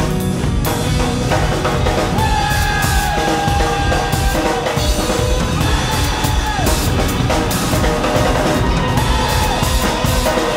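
Live band playing an instrumental passage: a drum kit played busily with cymbals and snare, heard close from behind the kit, over held electric guitar notes that slide down in pitch a few times.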